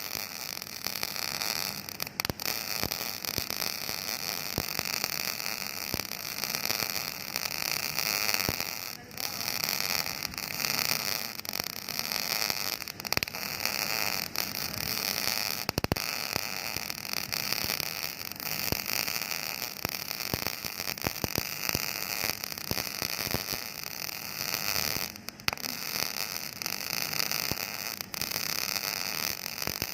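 Flux-cored arc welding on steel deck plate: the arc's steady crackling sizzle, broken by a few brief pauses where the arc stops and restarts.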